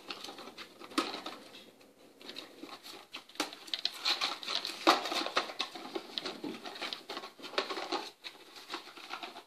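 Cardboard box of a Hot Wheels track set being opened by hand: flaps pulled and torn, with rustling, scraping and many irregular sharp clicks and taps, busiest in the middle.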